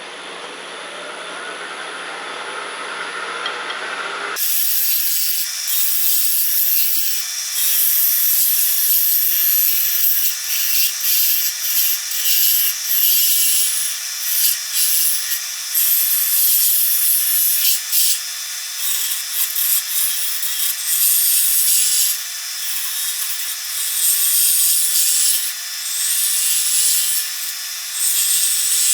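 Wood lathe running with a turning tool cutting into the spinning sweet gum workpiece. From about four seconds in there is a high scraping hiss of the cut, swelling and dropping every second or two as the tool is pushed in and eased off in repeated passes.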